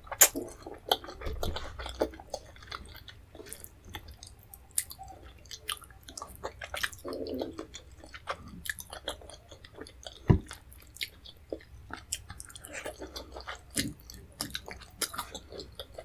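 Close-miked chewing of fufu with leafy Nigerian vegetable soup, eaten by hand: many short mouth clicks and smacks throughout, with one sharp knock about ten seconds in.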